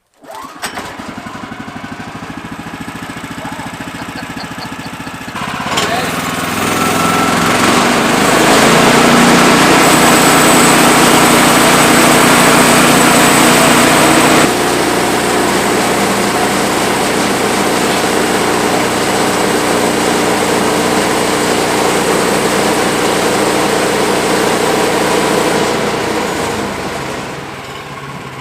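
Gas engine of a Woodland Mills HM126 portable band sawmill. It comes in abruptly at low running speed, is run up to full throttle a few seconds in and held there for about twenty seconds, then drops back toward idle near the end.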